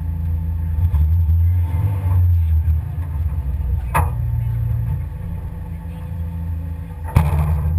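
Pinzgauer off-road vehicle's engine idling with a steady low hum, with a sharp knock about halfway through and a louder thump near the end.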